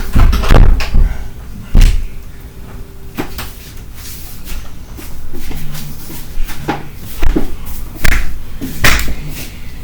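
A series of loud thumps and knocks: a cluster in the first second, one just before two seconds in, and three more spaced about a second apart near the end.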